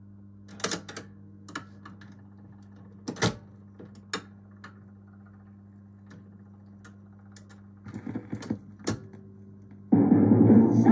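Record changer of a Pye Black Box record player cycling: a series of mechanical clicks and clunks as the 45 drops onto the turntable and the tonearm swings over and lowers, over a steady low hum. About ten seconds in, the record starts playing: a pop song with guitar and singing.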